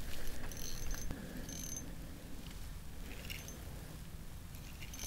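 Small ice-fishing spinning reel being cranked as a hooked lake trout is reeled in: a soft whirring with a few short high ticks, over a low steady rumble.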